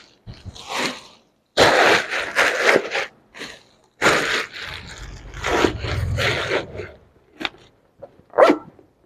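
Rustling and scraping from bags being handled, in two long bursts with a low rumble underneath the second, then a few short knocks.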